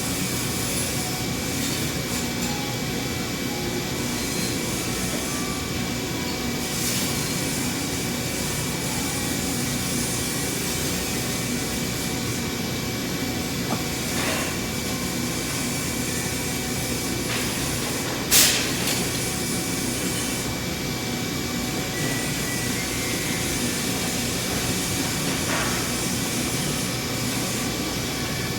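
Gas tungsten arc (TIG) welding arc hissing steadily, with a faint high tone in it and a few small clicks. A single sharp metallic clank about eighteen seconds in is the loudest sound.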